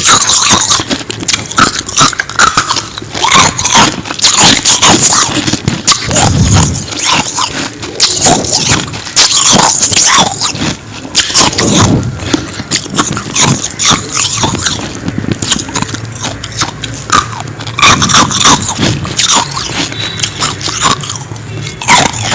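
Ice or frost being bitten and chewed close up, a dense run of irregular crunches and scraping crackles.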